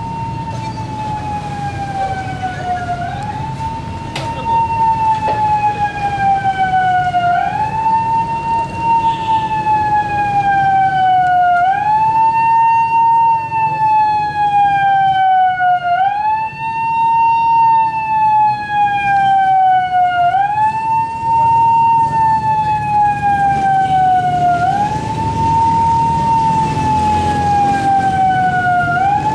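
A siren wailing for an earthquake drill: each cycle rises quickly, then falls slowly, repeating about every four seconds. It gets louder about four seconds in.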